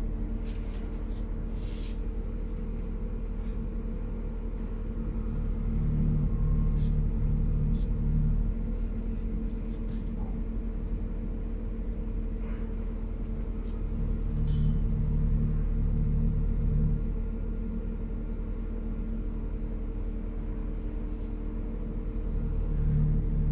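Low droning background music that swells every eight seconds or so, with a few faint clicks from the stainless-steel valve being handled.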